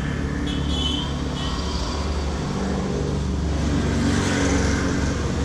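Road traffic: a motor vehicle engine running close by, a steady low hum, with a brief high-pitched tone about half a second in.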